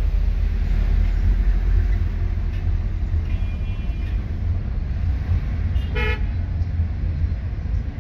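Steady low rumble of road and engine noise inside a Mercedes-Benz W124's cabin as it pulls through traffic, with a single short car-horn toot about six seconds in.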